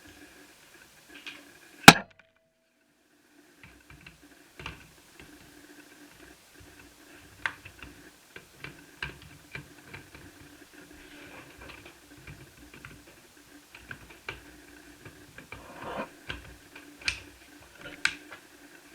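Scattered small clicks and taps of plastic netbook parts being handled and fitted, with one loud sharp click about two seconds in.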